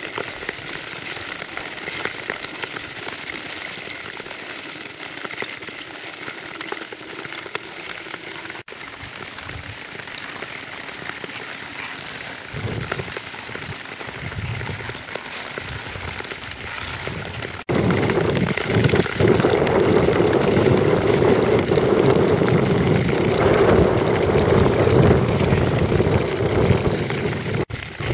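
Steel tour-skate blades hissing and scraping on natural lake ice as a group of skaters glides along, a crackling, rain-like sound. About two-thirds of the way in it cuts abruptly to a louder, deeper version of the same sound.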